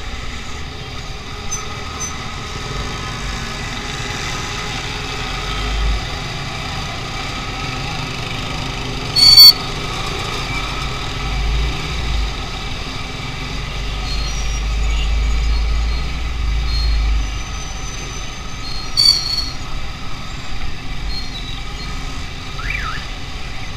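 Busy street traffic heard from a moving motorcycle: engines of motorbikes, auto-rickshaws and cars, with wind rumbling on the microphone. A short, very loud blast comes about nine seconds in and a smaller one near nineteen seconds.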